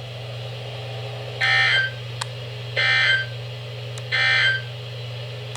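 Emergency Alert System end-of-message data tones: three short, buzzy digital bursts about a second and a half apart, marking the end of the alert. A steady low hum runs underneath.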